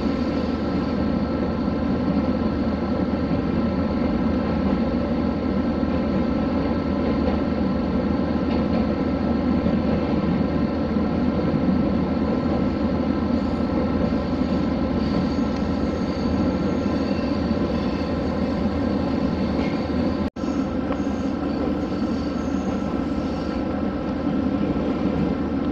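Steady drone of a vehicle under way: an engine hum with running noise, unchanging, broken by a brief dropout about twenty seconds in.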